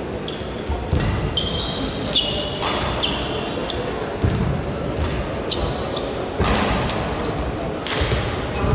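Badminton rally in a large hall: sharp racket strokes on the shuttlecock, thuds of the players' footwork, and brief high squeaks of court shoes on the floor.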